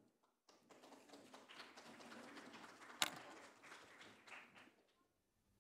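Near silence in a hall: faint scattered room noise, with one sharp click about three seconds in.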